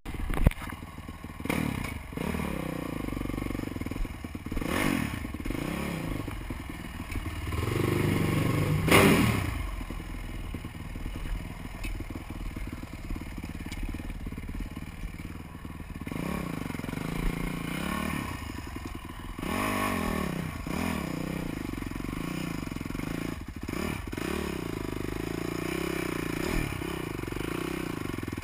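Supermoto motorcycle engine revving up and down repeatedly while riding over rough ground, with thumps and clatter from the bike over bumps. The loudest rev comes about a third of the way in.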